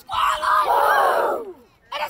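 A team of young football players shouting a chant together in unison: one long group shout that falls in pitch at the end.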